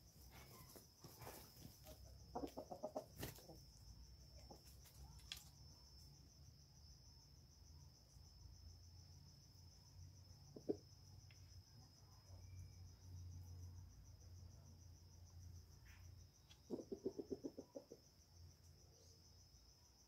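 A chicken clucking in two short bursts of quick repeated notes, a few seconds in and again near the end, over a steady high-pitched insect drone.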